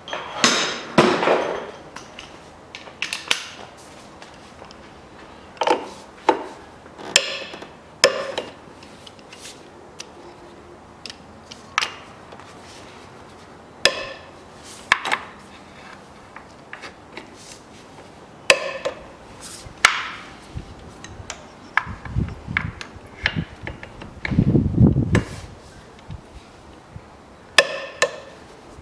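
Wrench and socket clinking and knocking on metal in a car's engine bay, as the 17 mm nuts of an engine mount are worked loose: irregular sharp clanks, some ringing briefly, with a duller low rumble a little over twenty seconds in.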